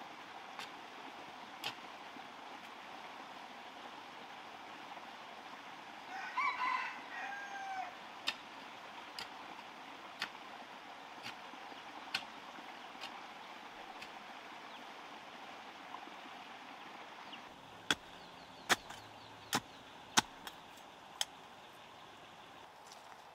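A rooster crows once, about six seconds in, a call of roughly two seconds that drops in pitch at the end. Sharp knocks come roughly once a second, with several louder ones near the end.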